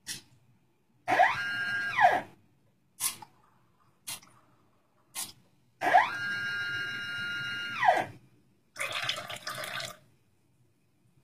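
Homemade drink-dispensing machine at work. A motor whines up in pitch, runs steadily and winds down again, twice (about one second, then about two), with single sharp clicks in between. Near the end comes a short noisy rush of about a second, like liquid running into the glass.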